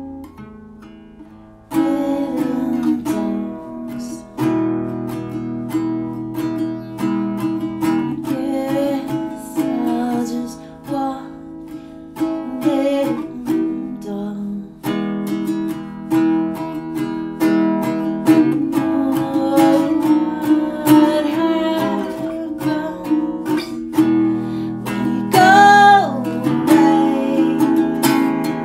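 Song on acoustic guitar, plucked and strummed, with a male voice singing in places. The playing comes in loudly about two seconds in, after a softer opening.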